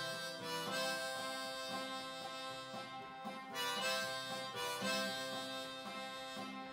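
Harmonica played in a neck rack, holding and changing notes over a strummed twelve-string acoustic guitar, in an instrumental break of a folk-rock song.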